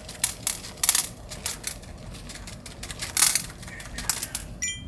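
A run of sharp, irregular clicks and light clatters of small hard kitchen items, with a short high ping near the end.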